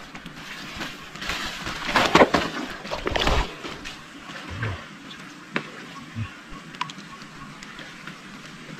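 A woven plastic sack rustling in a few noisy bursts over the first three seconds or so, then quieter wet sounds of a hand digging in waterlogged mud, with a few small clicks and soft squelches.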